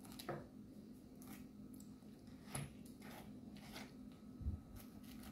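Kitchen knife cutting the eyes out of a peeled pineapple: several faint, short scrapes and clicks of the blade in the fruit, over a low steady hum.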